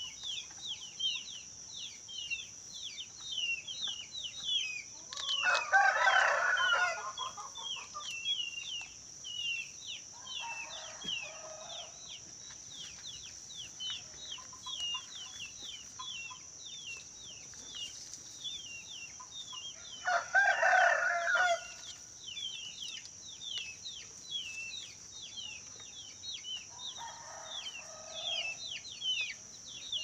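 A rooster crows twice, about five seconds in and again about twenty seconds in, each crow followed a few seconds later by a fainter crow from farther off. Under the crows run steady rapid bird chirping, about three chirps a second, and a steady high-pitched hum.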